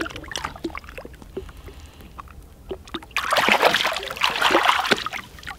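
A walleye released at the side of a boat splashes into the water and swims off: a loud splash about three seconds in, lasting about two seconds, after a few light knocks.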